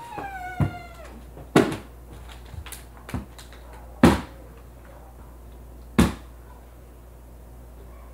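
A short meow-like cry falling in pitch at the start, then several sharp knocks at uneven intervals, the loudest about four seconds in: a flipped plastic water bottle landing and falling over.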